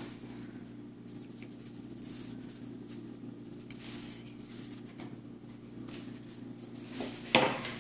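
Metal spoon scraping and tapping against a ceramic plate as fruit salad is scooped into a glass cup, with one sharper clink near the end.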